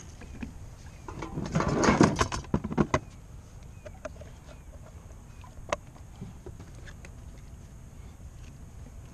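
A redfish flopping and thrashing against the kayak, about two seconds of rapid, irregular thumps and rattles, then one sharp knock a few seconds later.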